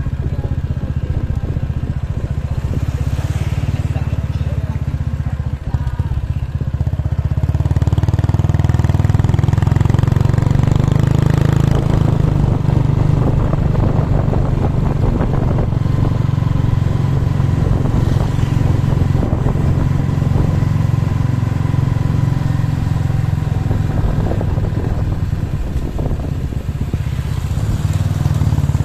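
Motorcycle engine running steadily under way, getting louder about seven seconds in.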